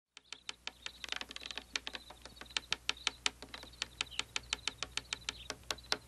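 Rapid tiny hammering, a quick run of light sharp taps at about six a second, from the Twiddlebugs' little house.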